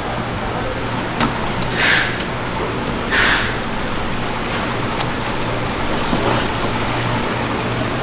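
Steady rushing of running water with a low hum, broken by two short hisses about two and three seconds in and a few light knocks.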